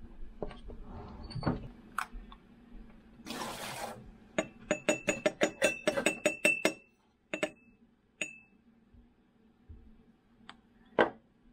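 A chef's knife chops on a plastic cutting board, then a brief scrape. Next comes a spice jar clinking rapidly against the rim of a glass mason jar, about five ringing clinks a second for over two seconds, as cayenne pepper is shaken in. A few single clinks follow.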